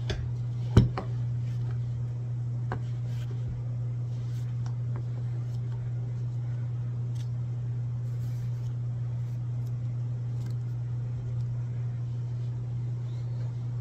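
A few sharp knocks and clicks of kitchen utensils on a wooden cutting board as sliced mushrooms are cleared off it into a crock pot, the loudest knock about a second in, over a steady low hum.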